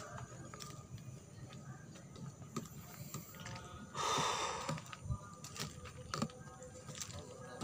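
Footsteps on dry leaf litter, a scatter of small scuffs and clicks, with one loud breathy exhale about four seconds in.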